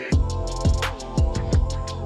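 Background hip-hop music: a beat kicks in at the start, with deep kick drums that drop in pitch about twice a second under quick hi-hat ticks.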